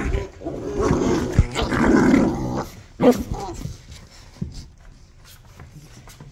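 Rottweilers growling in rough play: a dense, rumbling growl for the first two and a half seconds, a short sharp sound about three seconds in, then quieter stretches with light clicks.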